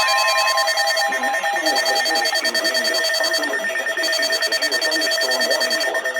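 Electronic emergency alert signal: a loud, steady buzzing tone with a wavering pattern under it, pulsing about every two and a half seconds.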